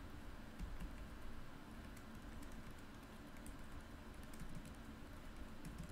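Faint typing on a computer keyboard: an irregular run of quiet key clicks as a sentence is typed out.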